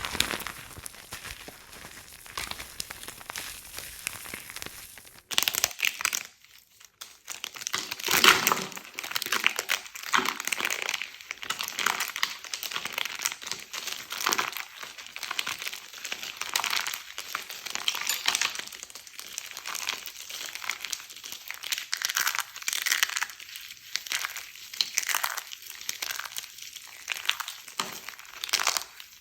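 Soap being crunched: soft crackling for the first five seconds, then after a short pause a dense, irregular run of crisp crunches and crackles.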